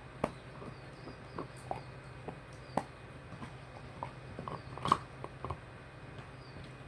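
A dog gnawing a deer shin bone: irregular sharp cracks and clicks of teeth on hard bone, with the loudest crunch about five seconds in.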